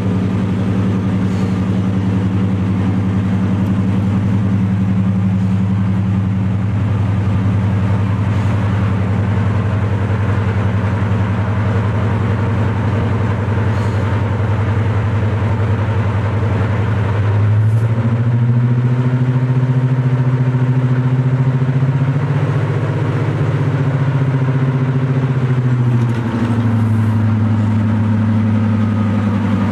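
Class 55 Deltic locomotive's twin Napier Deltic two-stroke diesel engines running as the locomotive moves slowly past. The engines hold a steady drone, rev up about two-thirds of the way in, rise a little further, then drop back to the lower note a few seconds before the end.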